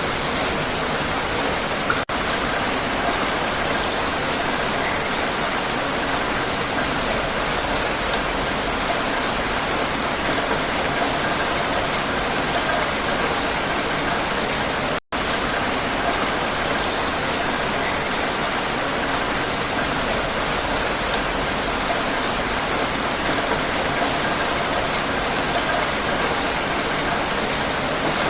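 Heavy rain falling in a steady, even hiss, cutting out to silence for a split second about halfway through.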